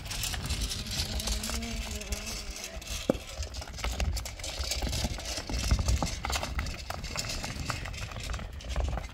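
A heavy cylindrical stone roller pulled on a rope, rolling over dry, gritty ground with a continuous low grinding and many small crackles of grit and pebbles under it.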